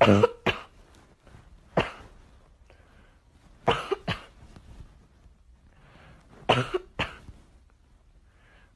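A series of short, sharp coughs, mostly in pairs about half a second apart, coming every two to three seconds.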